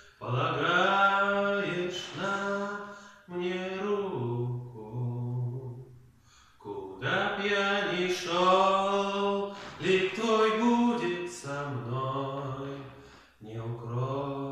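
A solo voice singing unaccompanied in slow, long-held phrases, with short breaks for breath between them.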